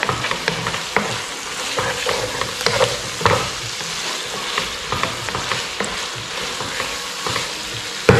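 Sliced pork stomach, kidney and beef liver sizzling in a frying pan in a sauce of oyster sauce and salted black beans, stirred with a wooden spatula that scrapes and knocks against the pan in many short strokes.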